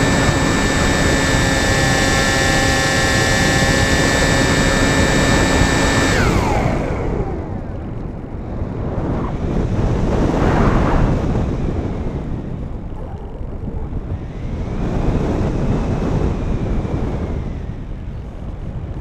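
Electric motor and propeller of a Sky Eye FPV model plane whining steadily at one pitch; about six seconds in the whine drops in pitch and dies away as the motor stops. After that, wind rushes over the onboard camera, swelling and fading twice.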